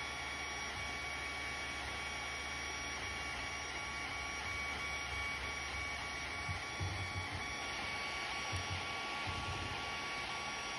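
Creality Ender 3 3D printer running a print: a steady whine with a few short, low hums in the second half as the print head moves.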